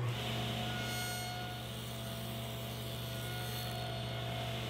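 Table saw running with a steady hum as a shallow test kerf, a little over 1/8 inch deep, is cut into a scrap of MDF.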